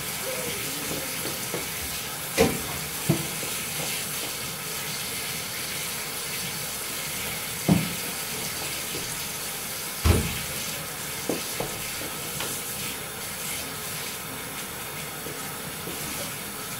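Bathtub filling from a running tap, a steady rush of water, with several sharp knocks over it, the loudest about ten seconds in.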